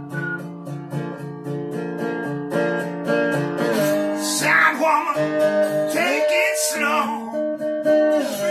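Gretsch square-neck resonator guitar tuned to open G, played lap-style with a steel bar: a steady run of picked notes over ringing chords. Partway through come a few sliding, wavering notes.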